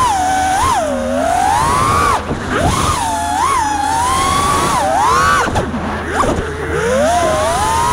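A 5-inch FPV racing quadcopter's brushless motors whining as it flies freestyle. Several close tones swoop up and down together as the throttle is punched and chopped, with dips about a second in, around two and a half seconds, and near the middle and the end, over rushing air.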